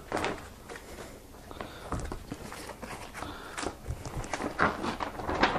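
Cardboard box and packaging being handled: irregular rustles, scrapes and light knocks as the contents are lifted out.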